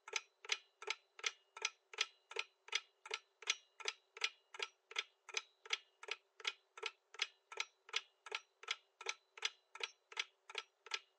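Clock-ticking sound effect of a quiz countdown timer: crisp, evenly spaced ticks at about three a second, counting down the time to answer.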